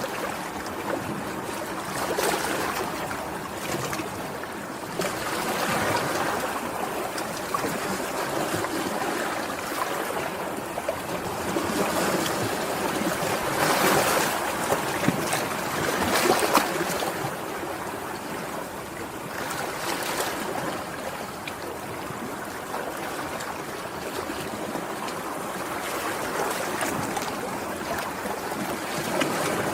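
Sea waves washing in: a continuous rush of water that swells and eases every few seconds, loudest about halfway through.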